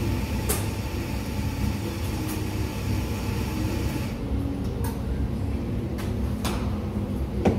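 Espresso machine at work: a steady hiss over a low hum, the hiss cutting off about four seconds in, with a few sharp clicks and knocks of metal bar equipment.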